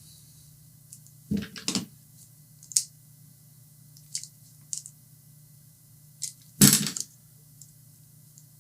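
Small tools and connector parts being handled on a workbench while a D-tap power cable is assembled: scattered sharp clicks and knocks, with a short clatter about a second and a half in and a louder one about 7 seconds in, over a low steady hum.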